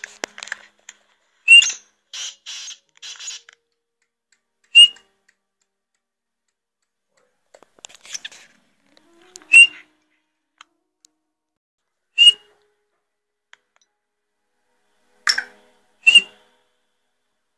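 Young black francolin giving single short, sharp, high call notes, six of them spaced a few seconds apart, with a few softer hissing sounds in between.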